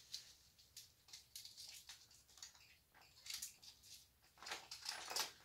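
Faint handling noise of costume jewelry and its packaging: scattered light clicks and rustles, a little louder near the end.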